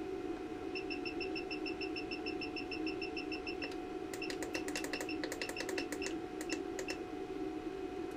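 Steady electrical hum under a fast, even run of short high-pitched electronic beeps, about seven a second, lasting around three seconds. After it comes a spell of irregular clicks mixed with more beeps.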